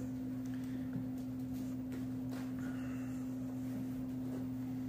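A steady low hum on one unchanging tone, with a few faint light taps.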